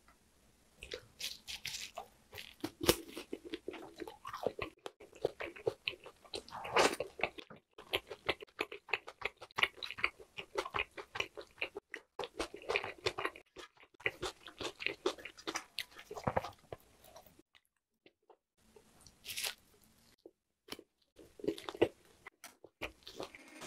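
Close-miked chewing and biting of grilled lamb skewer meat: a quick run of short, sharp mouth sounds, broken by brief pauses near the end.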